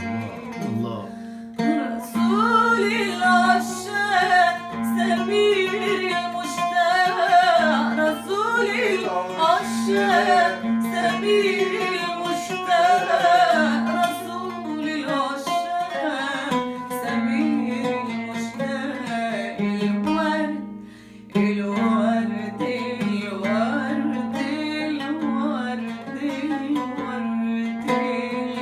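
Background music: a voice singing a wavering, ornamented melody over plucked string accompaniment and a steady low drone, briefly dropping away about twenty seconds in before resuming.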